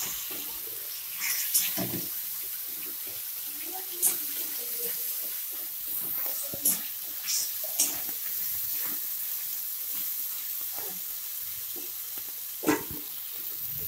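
Spice masala with tomato pieces frying in oil in a steel kadai, sizzling steadily while a metal spatula stirs it, with several sharp clinks and scrapes of the spatula against the pan.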